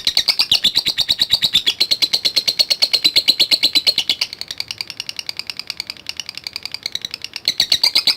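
Lovebird giving a long unbroken ngekek: a fast run of high chirps at about ten notes a second, dropping somewhat in the middle and louder again near the end.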